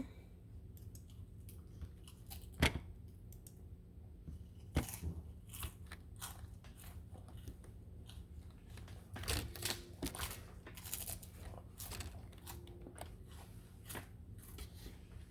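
Scattered clicks, taps and rustling of small objects being handled, with two sharper clicks a few seconds in and a busier stretch past the middle, over a faint steady low hum.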